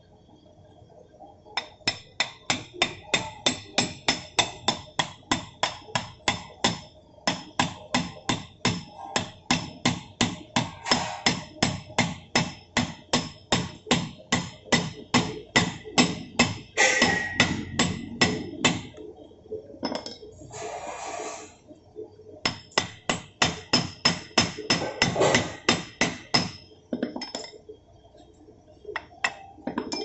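Hammer driving a new steel planet-gear pin into a backhoe's planetary carrier: rapid metal-on-metal blows, about four a second. The blows stop for a few seconds after the middle and then start again for a shorter run.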